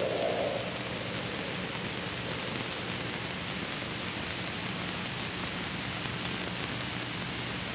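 Steady, even hiss with a faint low hum underneath; a held tone fades out in the first half-second.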